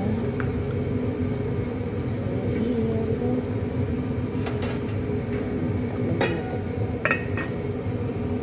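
Cooking pot and spatula clinking as squash is stirred, with a few sharper clinks about six and seven seconds in as the glass lid is set on the pot. A steady low hum runs underneath.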